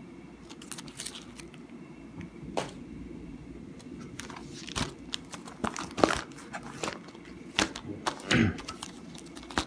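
Crinkling and clicking of clear plastic coin-holder sleeves being handled, mixed with the rubbing and knocks of handling noise, in scattered short rustles and ticks.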